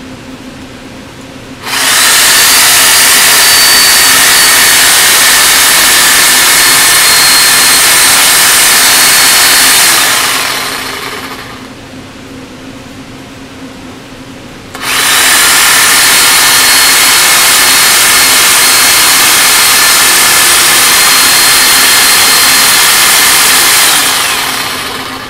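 A power saw cutting through a pig carcass's spine in two long runs, each about eight seconds. The motor's whine rises as it starts and fades away as it stops, with a quieter pause between the runs.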